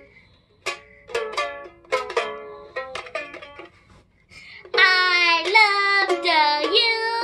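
Small red toy ukulele strummed by hand, a string of separate, quickly fading strums. About two-thirds of the way in, a child starts singing loudly along with the strumming.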